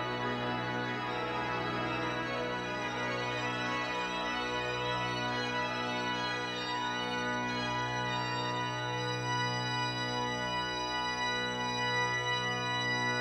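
Organ music: sustained held chords that change slowly, with no beat.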